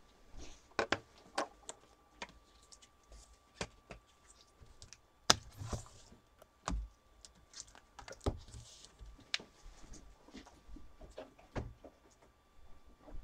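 Irregular clicks and taps, with one sharper knock about five seconds in and a few brief rustles.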